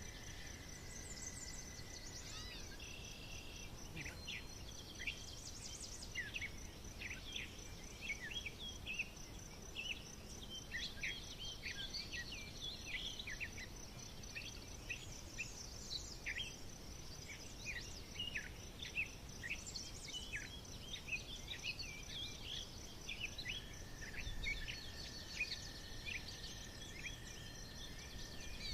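Forest birdsong: many small birds chirping and singing in quick, overlapping phrases. Underneath runs a steady, high, fast-pulsing insect trill.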